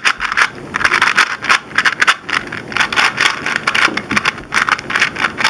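WitTwo Type C 2x2 plastic speedcube being turned fast in a solve: a quick run of scratchy plastic clicks and clatters from the layer turns, about two to three a second.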